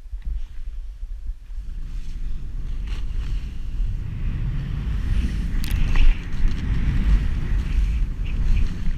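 Wind buffeting a body-worn camera's microphone on a fast off-piste descent. The deep rumble grows louder as speed builds, over the hiss of the rider's edges cutting through snow, with a sharper scrape about six seconds in.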